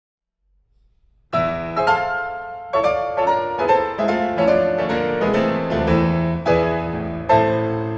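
Concert grand piano playing a classical piece: after a short silence, a loud chord opens the playing about a second in, followed by a string of strongly struck chords and notes that ring and decay between attacks.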